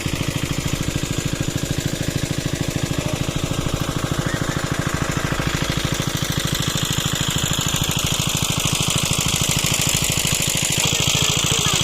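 A small engine-driven pump machine runs steadily at the pond with a fast, even beat.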